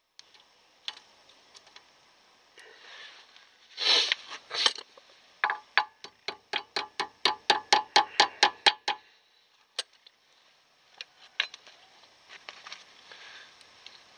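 VW Golf 3 rear brake drum spun by hand on its freshly reassembled hub, ticking evenly about four times a second for some three seconds as it turns, a check that it spins freely. Just before, a couple of louder metallic clatters; later, a few light metal clicks.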